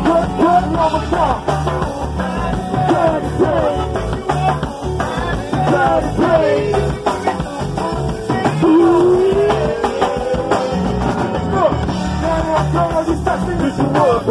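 Go-go band music: a steady drum and bass groove with singing over it.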